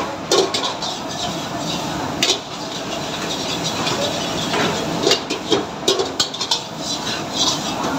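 A metal ladle clinking and scraping against a steel pan of curry, with sharp knocks scattered through, most of them close together about two thirds of the way in. Underneath is the steady noise of commercial kitchen gas burners and the extractor hood.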